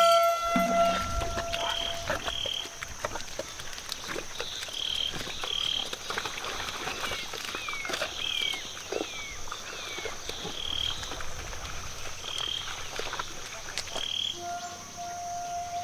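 Countryside ambience of frogs calling in short, repeated croaks about once a second, over a steady high insect hiss. Folk pipe music fades out at the start, and a held pipe note comes in near the end.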